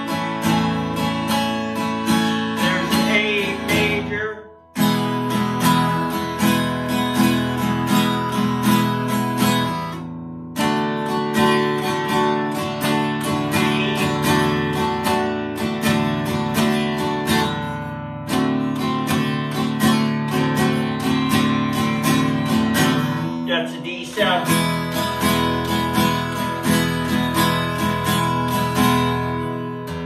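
Hohner HG 730 jumbo acoustic guitar, with Macassar ebony back and sides and a solid spruce top, strummed in basic chords. The strumming comes in a steady run of strokes, with a few short breaks at chord changes, the clearest about four seconds in.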